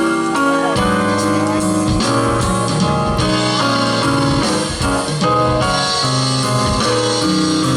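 Gospel band playing an instrumental passage led by guitar, over a bass line with a steady beat.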